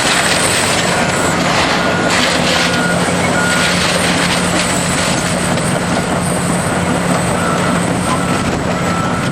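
Heavy demolition machine's engine running steadily under a broad noise, with its backup alarm beeping repeatedly at an even pace.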